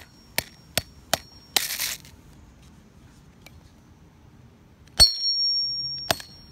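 Claw hammer striking a Samsung Galaxy S3 phone on pavement: three light taps in the first second or so and a brief gritty scrape, then after a pause one hard blow about five seconds in that rings metallically for about a second, with another tap near the end.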